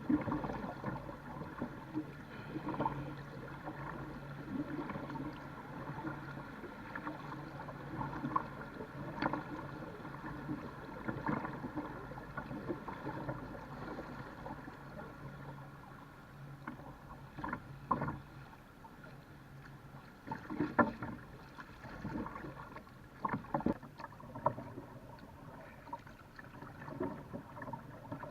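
A jet ski engine droning steadily as it tows a line of rafts, over water noise, with scattered short, sharper sounds.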